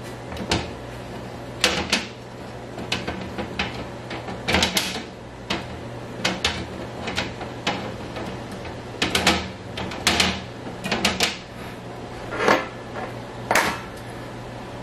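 Stacked plastic food-dehydrator trays clattering and knocking as they are set down and shifted on a countertop: a run of short, sharp clicks and knocks at irregular intervals, with a few louder clacks near the end.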